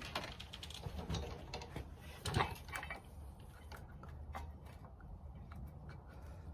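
Rear brake pad clicking, scraping and knocking against the motorcycle's brake caliper as it is worked by hand, with one louder knock about two seconds in and lighter ticks after. The pad won't seat because it is being fitted the wrong way round.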